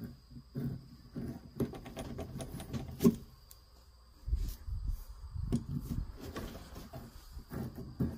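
Handling sounds of a metal fitting being turned by hand in a hole in a wooden block: irregular scraping, rubbing and clicks, with one sharp click about three seconds in and low rumbling knocks a little later.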